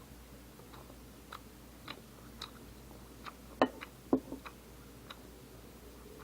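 Close-up eating sounds: irregular short, wet clicks of chewing, with two louder clicks a little past the middle.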